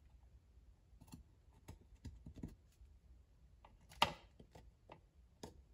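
Faint clicks and taps of a plastic controller housing being held against drywall while its mounting holes are marked with a marker, with one sharper click about four seconds in.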